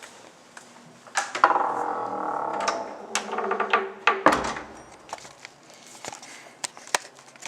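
A door creaking loudly for about a second and a half, then a run of sharp clicks and a heavy thump, as of the door being pulled shut and its latch catching, followed by a few lighter clicks.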